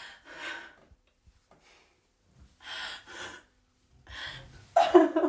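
A woman crying: shaky, gasping in-breaths and out-breaths in pairs, then a louder voiced sob near the end.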